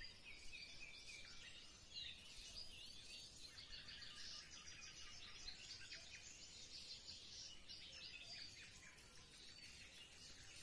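Faint background chirping of many birds: short, high calls overlapping continuously over a low hiss.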